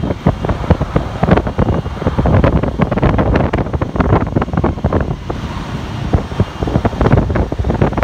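Strong wind buffeting the microphone: a loud, gusty rumble with uneven thumps and surges throughout.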